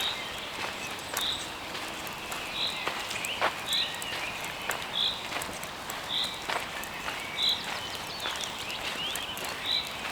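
Footsteps crunching on dry leaves along a forest path, while a songbird repeats a short, high call about once every second and a quarter, some eight times.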